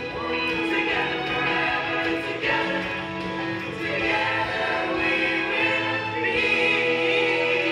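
A musical-theatre cast singing together in chorus over instrumental accompaniment.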